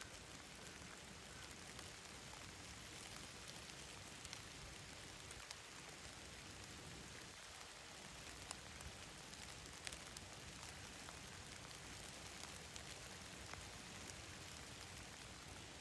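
Faint outdoor ambience: a steady hiss with a few scattered light ticks.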